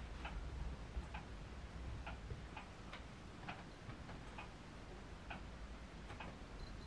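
Faint, light ticking, roughly one tick a second with a few coming closer together, over a low steady hum.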